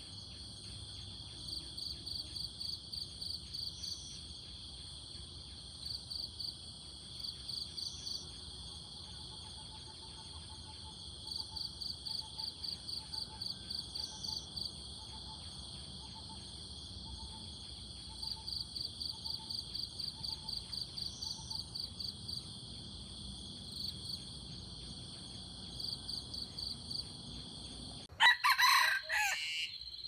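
Steady, shrill insect chorus with pulsing trills every few seconds and a faint repeated call in the middle; near the end a rooster crows once, loud and close.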